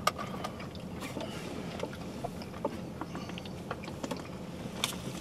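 Quiet car-cabin noise: a steady low hum, with a few small clicks scattered through it from a plastic water bottle being opened and handled.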